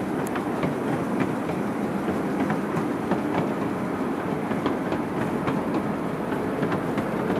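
Steady rumble of a miniature ride-on train rolling along its narrow-gauge track, with light clicks from the wheels on the rails.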